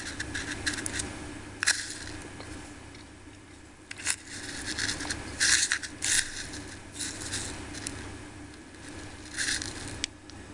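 Wooden chopsticks scraping and clicking against a small plastic cup while stirring and picking through dry breadcrumbs, in irregular bursts with short pauses between them.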